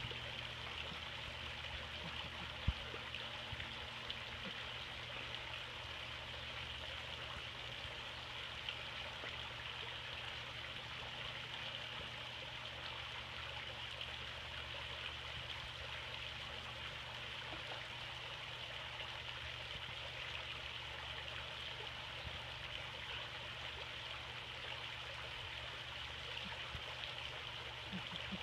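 Tiered garden fountain splashing steadily, with a faint low hum under it and one sharp click about three seconds in.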